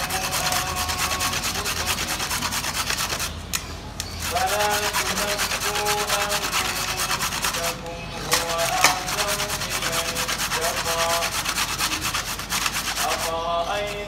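Carrot being grated on a metal grater: quick, continuous rasping strokes, stopping briefly three times.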